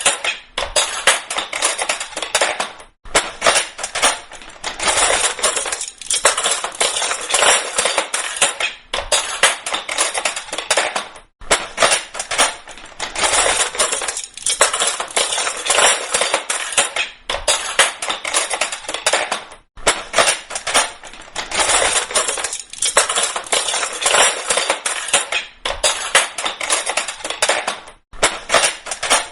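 Metal kitchen cutlery falling and clattering together in a dense, continuous jangle of clinks, in runs several seconds long broken by brief pauses.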